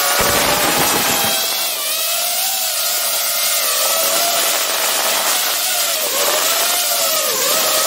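FPV quadcopter's electric motors and propellers whining, heard from a camera mounted on the drone itself; the pitch wavers up and down as the throttle changes, over a steady rush of air. A brief low rumble comes in the first second or so.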